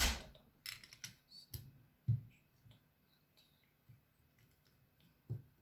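Plastic Lego bricks clicking and knocking as pieces are handled and pressed together: scattered separate clicks and taps, with a louder knock about two seconds in.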